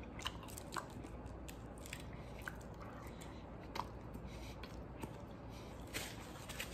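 A man quietly chewing a mouthful of burrito, with a few short mouth clicks and smacks scattered through; a faint low hum runs underneath.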